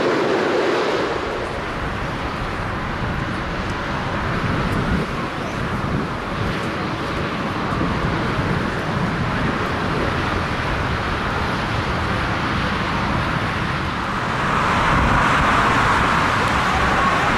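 Jet airliner engines: a steady rushing noise that grows louder about fifteen seconds in.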